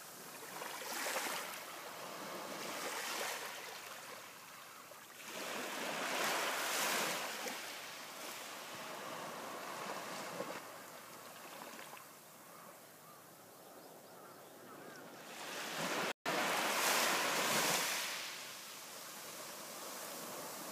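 Small sea waves breaking and washing up a sandy beach, the surf swelling and falling every few seconds. The biggest wash comes about three-quarters of the way through, just after a momentary dropout in the sound.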